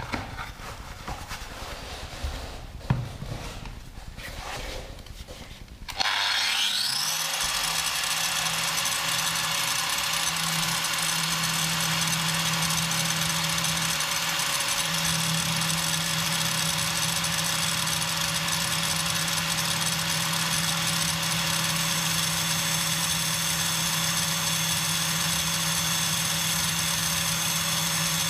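Some rustling of handling and a single knock. About six seconds in, an angle grinder starts, spinning up with a quickly rising whine, then runs steadily while a tungsten welding electrode, turned slowly in a cordless drill, is sharpened against its disc.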